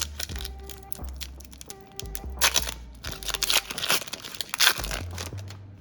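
Foil Pokémon booster pack wrapper being torn open and crinkled, in several loud bursts from about two seconds in.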